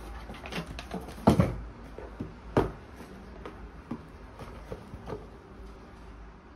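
Cardboard boxes being handled and opened by hand: a run of knocks, scrapes and flap rustles. The loudest knocks come about a second in and again around two and a half seconds, with lighter ones after.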